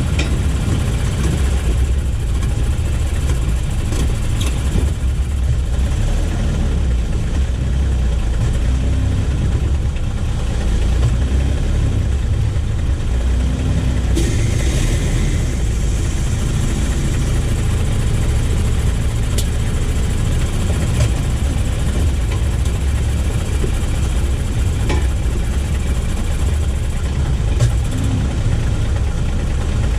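2022 Toyota Tacoma running: a steady low engine and road rumble, with a few faint short ticks scattered through it.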